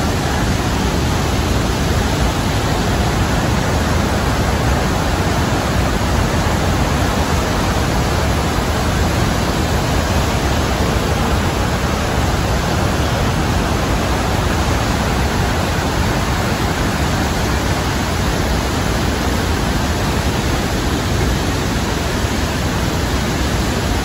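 The Rhine Falls, a large river waterfall, rushing close by: a loud, steady roar of falling water, unchanging throughout.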